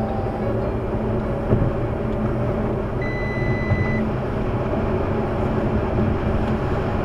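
Steady in-cabin drone of tyre and wind noise with a low engine hum from an Audi A8 driving at high motorway speed. A single electronic beep sounds for about a second, about three seconds in.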